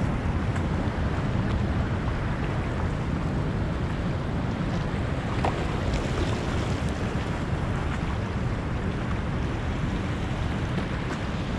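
Steady rush of turbulent tailwater churning below a dam spillway, mixed with wind buffeting the microphone.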